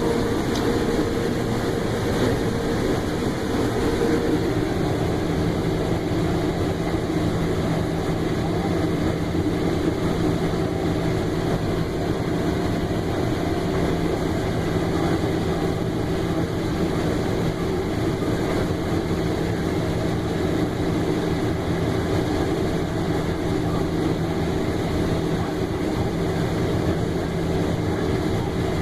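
Combine harvester running steadily while harvesting corn, heard from inside the cab: a constant mechanical hum with a few held tones, one higher tone dropping out about four seconds in.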